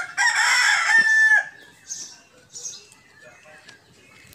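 A rooster crowing once, loud, about a second and a half long and ending on a held note.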